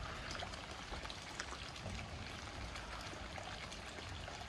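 Heavy rain falling: a steady hiss with many small drop hits scattered through it.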